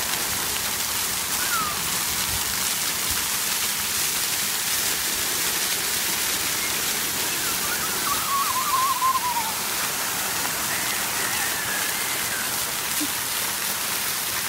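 Splash-pad fountain jets spraying and pattering onto wet pavement: a steady, even water hiss. A faint, high, wavering call rises above it about eight seconds in.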